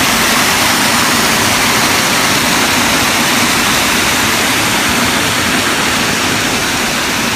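Small mountain waterfall and cascade rushing over rocks into a pool, heard close up as a loud, even, unbroken rush of water.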